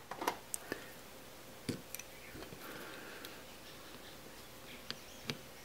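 Faint, irregular light clicks of a small steel punch being set and tapped against the rivet on the die-cast metal base of a toy car, with a brief faint scrape about halfway through.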